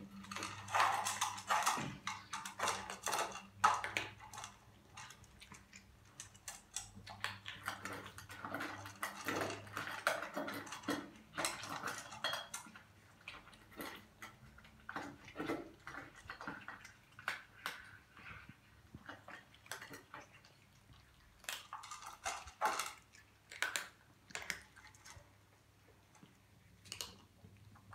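Cats eating dry kibble from a plastic bowl and a stainless steel bowl: irregular crunching, with the bowls clinking and scraping on the hard floor. It is busiest in the first few seconds, again in the middle and a little before the end, and thins out near the end.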